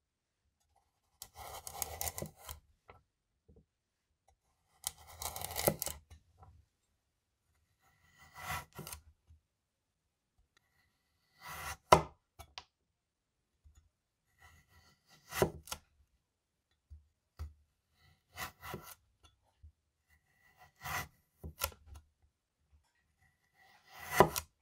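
Knife slicing lengthwise through a raw carrot on a wooden cutting board: about ten separate cuts a few seconds apart, the first two drawn-out strokes and the rest short and sharp.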